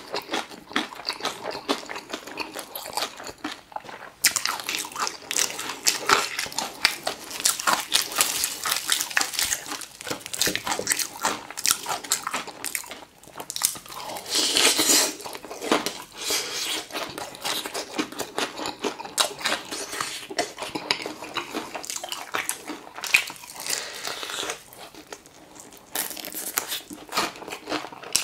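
Crisp battered fried chicken being bitten and chewed, crunching and smacking. The crunching picks up about four seconds in, and is loudest with a big crunchy bite around the middle.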